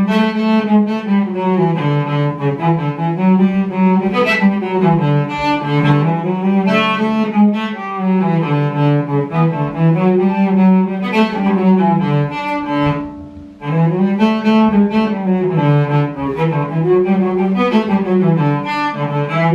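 Solo cello being practised: a bowed melody moving note to note, with a short break about thirteen seconds in.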